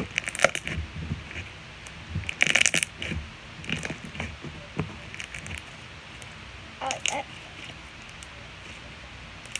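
Purple slime being stretched and squeezed by hand, giving off irregular sharp wet clicks and crackly pops from trapped air. The loudest burst comes about two and a half seconds in, another around seven seconds, and it goes quieter near the end.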